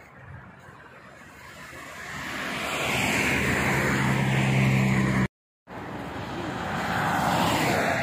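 Motorway traffic going by: a vehicle approaches and passes with tyre noise and a steady low engine hum. The sound cuts off abruptly a little past five seconds in, then another vehicle swells past and fades.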